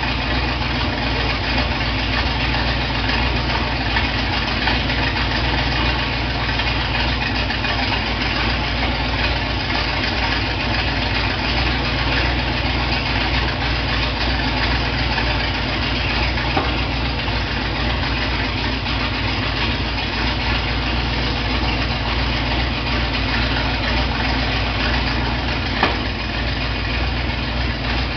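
Dodge V8 engine idling steadily with a deep rumble, with one brief click near the end.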